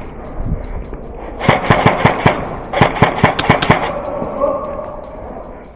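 Airsoft electric rifle (AEG) firing two rapid bursts, each about a second long, the shots coming in quick clicking succession.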